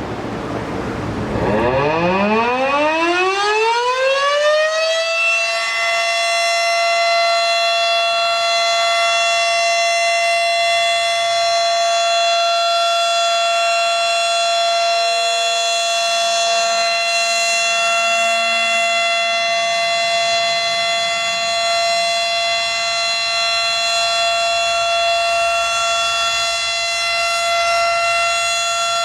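Federal Signal Model 5 electromechanical warning siren starting up: its pitch rises over about four seconds as it winds up to speed, then it holds a steady tone for the rest of the test signal.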